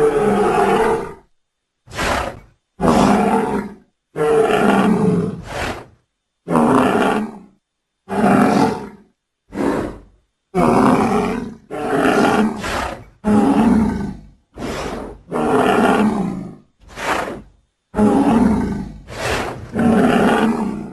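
A string of deep animal roars and bellows, about fifteen short calls of up to a second and a half each, with brief silences between. They are sound effects for an imagined Arsinoitherium, pieced together from rhinoceros, moose, bull and triceratops sounds.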